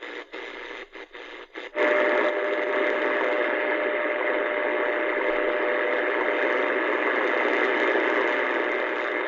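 Kaito KA550 portable radio on shortwave, heard through its speaker. For a couple of seconds the sound cuts in and out with short drop-outs while it is tuned. Then it settles into loud steady static with a faint steady tone under it: the weak signal of the WWV time station on 10 MHz.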